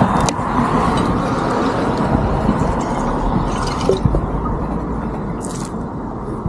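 Water being poured from a bottle into a vacuum flask, with a few short splashing and dripping sounds, over a steady rush of outdoor noise.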